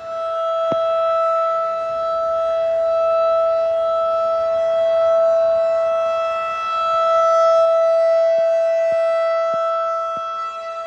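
Federal Signal 2001-SRN outdoor warning siren sounding its test at full speed: one steady, low, loud tone that does not change in pitch, swelling and easing in loudness every few seconds as the rotating horn sweeps past.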